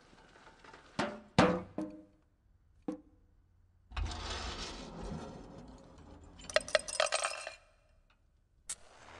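Honda Accord car parts knocking, clinking and rolling into each other in a chain reaction on a wooden floor. A few sharp knocks and taps come in the first three seconds, then a longer rolling, scraping noise from about four seconds with a burst of metallic clattering around seven seconds, and another knock near the end.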